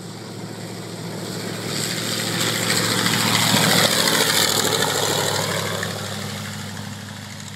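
Vintage light propeller aircraft's piston engine flying past, swelling to its loudest about four seconds in and then fading, its pitch dropping as it goes by.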